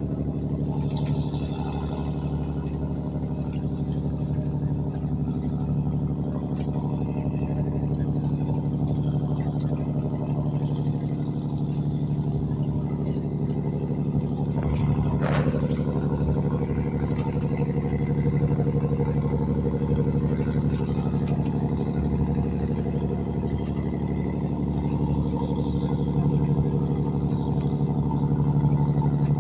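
Boat engine running steadily: a constant low hum with steady overtones that does not change in speed, with one brief sharper sound about halfway through.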